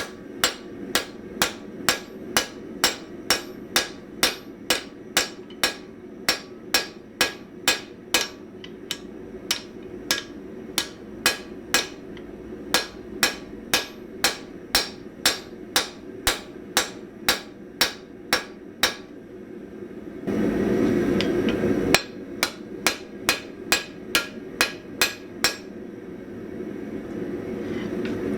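Hand hammer striking hot spring steel on an anvil in a steady rhythm, about two blows a second, forging a chamfer into an anvil shears blade. The blows pause for a couple of seconds of louder rushing noise, resume briefly, then stop as the rushing rises again, over a steady low rushing background throughout.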